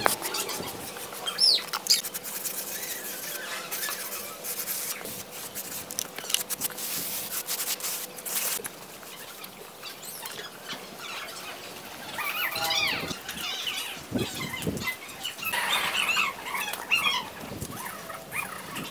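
Hand float scraping and smoothing wet cement mortar, a gritty rasp in many short strokes through the first half. Birds chirp in two short bouts in the second half.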